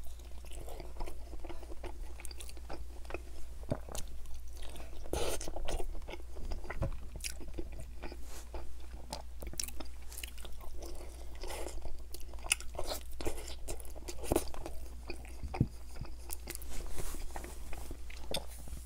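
Close-miked mouth sounds of a person biting into and chewing saucy barbecue ribs, with many irregular small clicks throughout.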